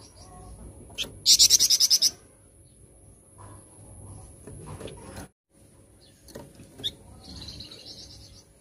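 Flamboyan songbird singing in bursts: a loud, rapid high trill of about nine notes a little over a second in, a few short calls, and a softer trill near the end.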